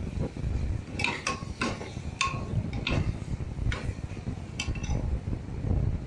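Metal ladle clinking and scraping against the inside of an aluminium pressure cooker while paneer gravy is stirred: about seven irregular sharp knocks, some with a brief ring, over a low rumble.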